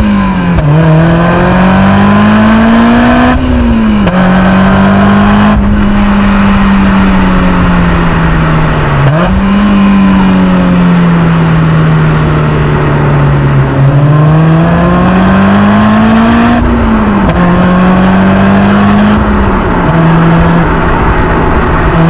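Honda S2000 (AP2) 2.2-litre inline-four exhaust through an ASM I.S.Design silencer kit muffler, running under way. The pitch climbs gradually and then drops sharply several times, as with gear changes.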